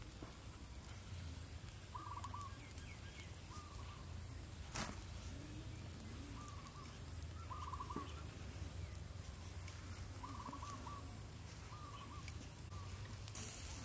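Birds calling over and over: short, stuttering calls every second or two over a steady low hum, with a single sharp click about five seconds in.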